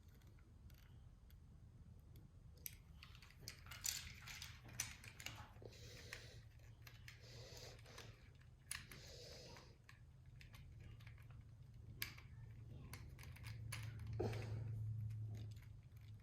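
Small plastic clicks and taps of hands working on a Tomy Plarail toy engine, taking off its little side rod pieces. A low steady hum runs underneath and grows louder for a second or so near the end.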